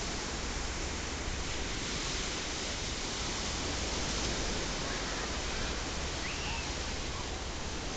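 Steady rushing wash of small waves breaking on a sandy beach.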